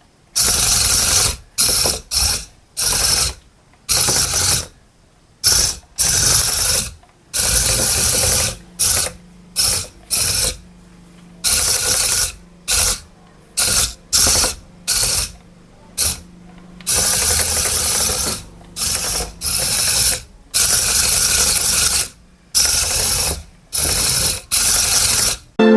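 A remote-control toy's small electric motor and plastic gearbox whirring and grinding in stop-start bursts, each a fraction of a second to about two seconds long, as the controls are pressed and released.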